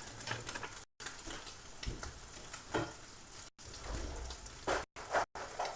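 Butter and oil with ham and chicken roll sizzling steadily in a frying pan. A few soft knocks of stirring come through, and the sound drops out briefly several times.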